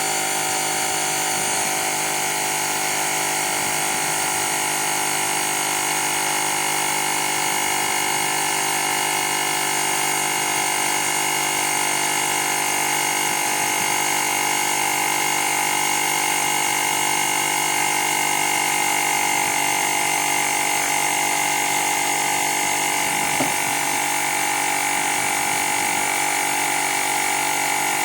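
Woowind AP2-P cordless electric tyre inflator's compressor running steadily, pumping up a bicycle tyre toward a preset 2.3 bar.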